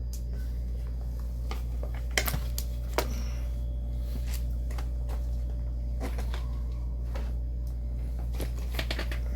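Tools and their cases being handled and set down: scattered clicks and light knocks, the sharpest about two and three seconds in and a few more near the end, over a steady low hum.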